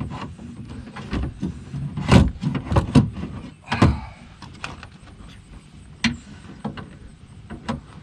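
A new window regulator and motor assembly knocking and scraping against the inside of a car door shell as it is worked into place by hand: irregular clunks and rattles, the loudest about two seconds in and just before four seconds.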